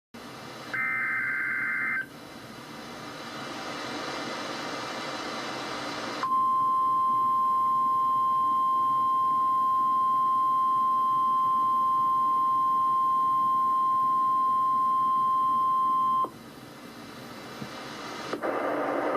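NOAA Weather Radio emergency alert test over radio hiss. About a second in comes a brief warbling burst of SAME digital header data. About six seconds in, the weather radio warning alarm tone, a single steady 1050 Hz pitch, starts and holds for about ten seconds, then cuts off suddenly back to hiss.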